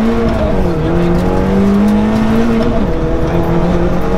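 BMW E36 318ti rally car's four-cylinder engine heard from inside the cabin, revving up under hard driving. The revs fall back sharply about half a second in, climb again, and drop once more near three seconds in.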